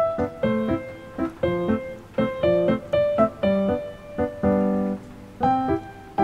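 Background piano music: a light melody of short notes, about three a second, with one longer held note shortly before the end.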